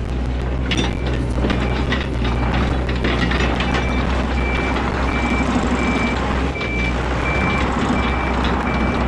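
Yanmar ViO80 mini excavator's diesel engine running steadily, with scattered knocks of the machine at work. From about three and a half seconds in, a backup alarm beeps steadily, a little under two beeps a second.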